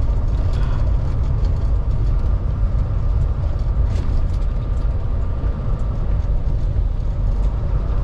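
Semi truck's diesel engine and road noise while driving: a steady low rumble.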